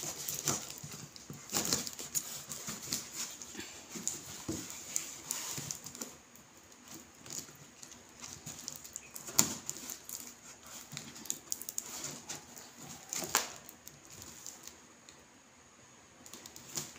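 Kitchen knife cutting and scraping through plastic stretch wrap and cardboard on a box: irregular scratching and crinkling, with two sharper knocks about nine and thirteen seconds in.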